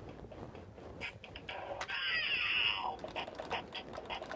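Bop It Extreme 2 toy playing an electronic sound effect: a passage of gliding, mostly falling tones lasting about a second, starting about two seconds in, among a few light clicks from the toy being handled.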